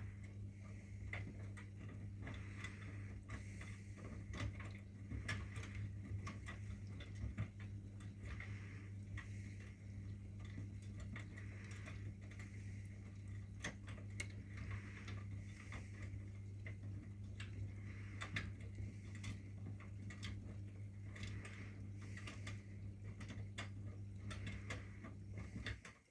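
Miele washing machine running in its wash cycle: a steady low hum under rapid, irregular clicking and ticking. All of it cuts off suddenly at the very end.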